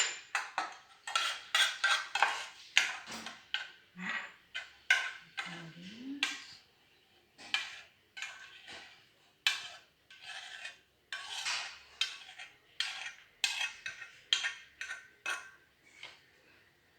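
A spoon scraping and clinking against a pan and container as thick homemade cream is spooned out, a long run of irregular scrapes and taps.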